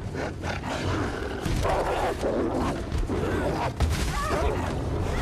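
Film fight sound effects: giant wolves snarling and growling through a dense scuffle of movement, with a sharp impact a little under four seconds in.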